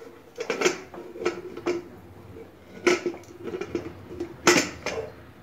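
Metal clinks and knocks from an aluminium pressure cooker being handled on the stove, about six sharp clicks with the loudest about three and four and a half seconds in, over a faint steady hum.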